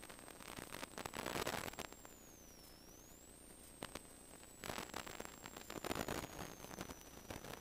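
Two-way radio static: short bursts of hiss come and go several times, with no voice in them, over a faint high whine that dips in pitch and climbs back in the middle.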